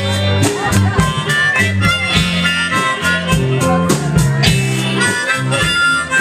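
Live blues-rock band playing, with a harmonica blown into a handheld microphone carrying the lead over electric guitar, bass and drums.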